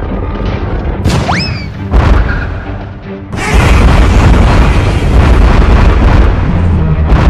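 Cartoon battle sound effects over background music: a rising whistle about a second in, a sharp hit about two seconds in, then a long, loud, noisy blast of energy-beam and explosion booms.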